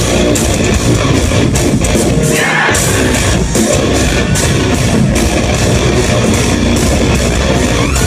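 Live metalcore band playing loud, with heavy electric guitars and drum hits, heard through a phone's microphone in the crowd.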